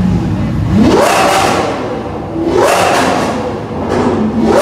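Engine revved hard three times over a rumbling idle: each rev climbs quickly in pitch, holds for a moment, then drops back to idle. The third rev starts just at the end.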